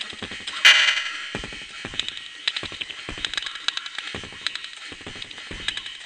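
Beatboxing: vocal percussion made with the mouth, a rhythmic run of sharp clicks with deeper kick-like strikes about every three-quarters of a second. There is a loud hissy burst, like a cymbal, near the start.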